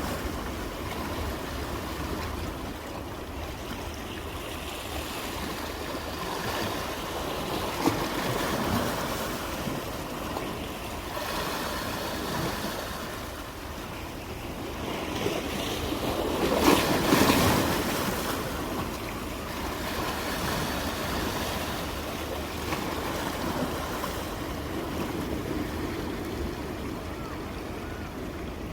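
Ocean waves washing onto the shore in a continuous rushing surf that swells and ebbs, with one louder wave breaking about two-thirds of the way through.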